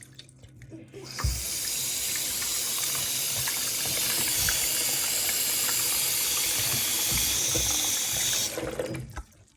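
Water running in a steady stream, turned on about a second in and cut off abruptly near the end.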